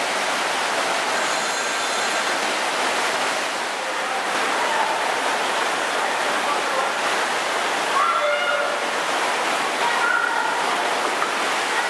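Steady rush of fast-flowing water in an artificial wild-water rafting channel, with voices and children's calls over it.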